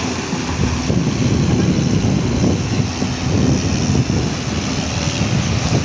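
Diesel engine of a JCB NXT 225LC M tracked excavator running under load while its bucket digs into broken quarry rock, with rock scraping and clattering against the steel bucket.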